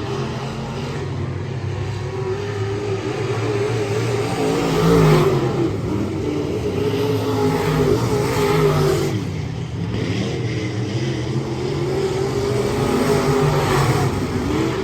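Race car engines running and revving, their pitch rising and falling throughout, loudest about five seconds in.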